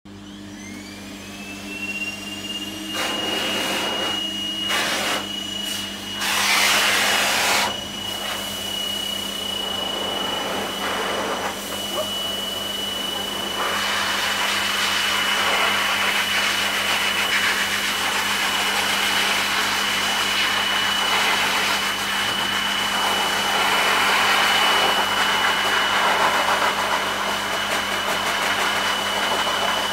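Pet force dryer (high-velocity blower) starting up: its motor whine rises in pitch over the first second and then holds a steady high whine under a rush of air. The air noise swells and changes as the nozzle is moved over the dog's wet coat, loudest about seven seconds in.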